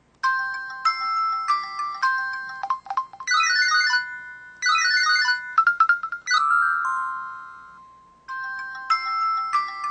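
Samsung SCH-B570 mobile phone playing one of its built-in electronic melodies through its speaker: a bright tune of short, bell-like notes. It fades out about eight seconds in and starts again from the beginning.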